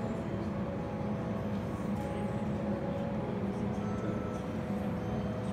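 A steady low rumbling drone with faint held tones over it, the ambient soundtrack of a projection-mapping art show.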